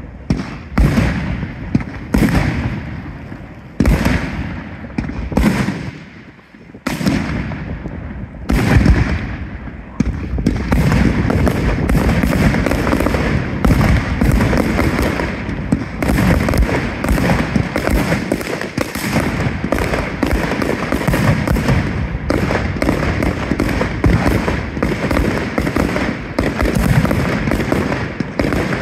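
Aerial fireworks display: shells bursting with loud bangs about once a second, then from about ten seconds in a dense barrage of rapid bangs and crackling with no pause.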